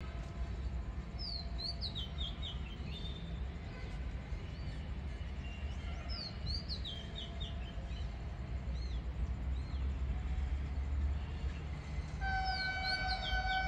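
Birds calling in series of short descending chirps over a steady low rumble. About twelve seconds in, the horn of an approaching Vande Bharat Express train starts one long, steady blast, the loudest sound.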